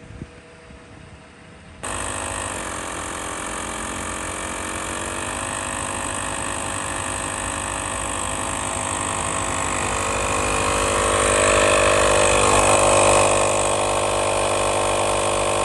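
Portable Toyota Accessories tyre inflator, a small electric air compressor, running while it pumps up a car tyre: a steady buzzing motor hum that starts abruptly about two seconds in and grows louder about ten seconds in.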